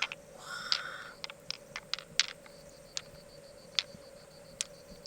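Sharp, irregular clicks and taps of hard objects knocking together, about a dozen over five seconds, over a faint steady hum.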